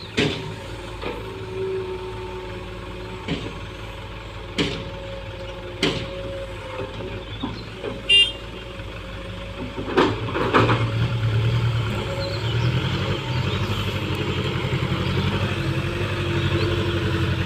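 Hitachi EX120-3 hydraulic excavator working: the diesel engine runs under a steady hydraulic whine, with a string of sharp metallic knocks and a brief high squeal about eight seconds in. About ten seconds in the engine takes on load and grows louder and heavier.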